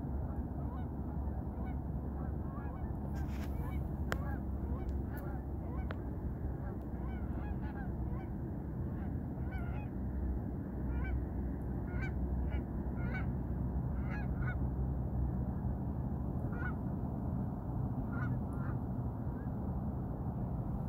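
A flock of birds calling: many short, separate calls, at times several a second, over a steady low rumble.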